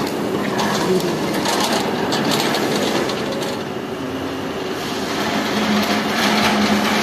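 Hand pallet truck rolling across a concrete floor: a steady rumble from its small load wheels and steering wheels, with rattles and knocks from the steel frame and forks.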